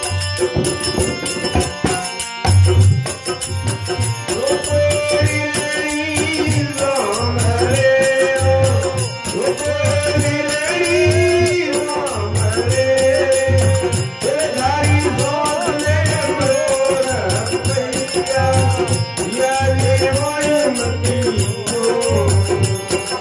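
Folk devotional song: a man's voice singing into a microphone over a harmonium, with a steady low drum beat about once a second and jingling percussion; the voice comes in about four seconds in after a short instrumental passage.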